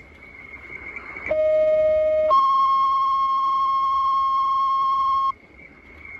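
Fire and EMS dispatch alert tones on a scanner radio, a two-tone page that sets off the responding units' pagers. A lower tone sounds for about a second, then a higher tone is held for about three seconds and cuts off sharply, leaving faint radio hiss.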